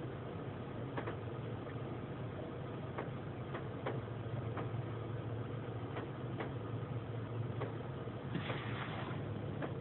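Steady low mechanical hum heard from inside a car's cabin in a stalled automatic car wash, with scattered light ticks and a short hiss about eight seconds in.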